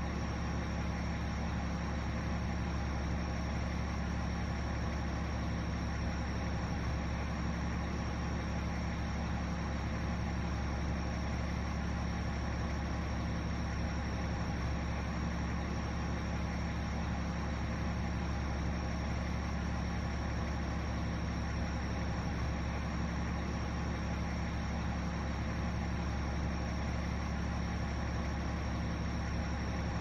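Parked fire engine's engine idling steadily, a constant low hum with a thin steady high-pitched whine above it.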